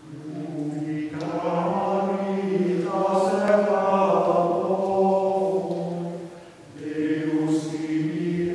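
Choir singing Gregorian chant a cappella. A long sung phrase begins, more voices filling in about a second in, then a short breath and the next phrase starts.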